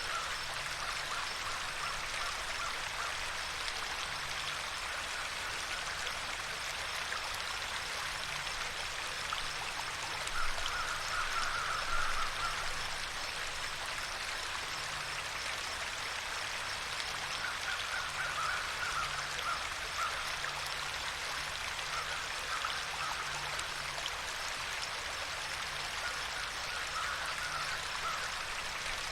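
Running water of a stream, a steady even rushing, with a higher sound that comes and goes a few times over it.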